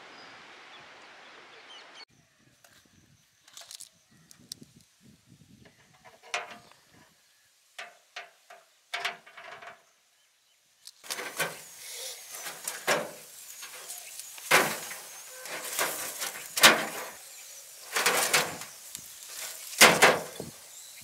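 Steady outdoor wind noise for about two seconds, then scattered clicks and knocks of pieces of meat being handled and turned on a half-barrel charcoal grill's wire grate. The knocks and scrapes grow denser and louder about halfway through.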